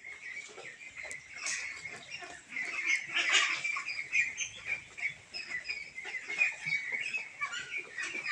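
A flock of 23-day-old white meat ducklings calling, with many short, high calls overlapping one another all the way through. The calls get busiest and loudest about three seconds in.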